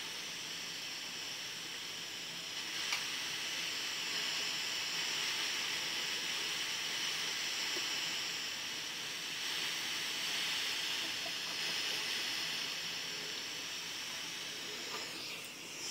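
Hot-air rework station blowing a steady hiss from its nozzle onto a chip being desoldered, with one small click about three seconds in.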